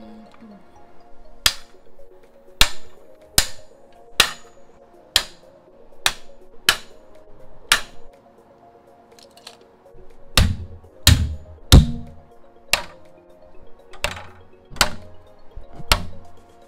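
Plastic fittings of a clothes drying rack being snapped and pressed onto its stainless steel rods: a series of sharp clicks about one a second, with a few heavier knocks near the middle.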